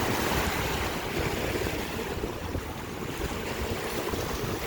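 Lake waves washing in steadily, with wind buffeting the microphone.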